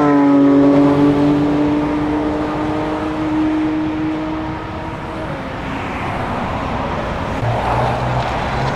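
Porsche 911 GT3 naturally aspirated flat-six driving past at speed, holding one steady engine note that fades away over about five seconds as the car recedes. Near the end a lower, rougher engine rumble from another car comes in.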